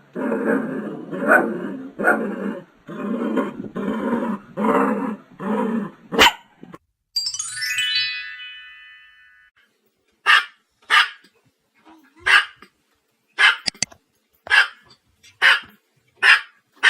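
A dog growling and barking in quick, dense runs. After a sharp click and a short falling chime, a small dog gives about ten sharp, high-pitched barks, roughly one a second.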